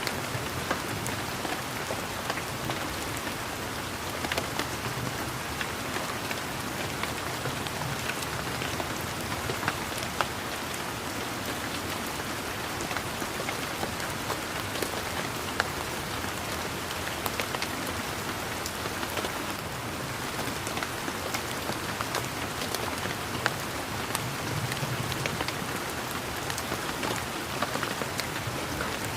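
Steady rain falling, with many separate close drops ticking through the even hiss.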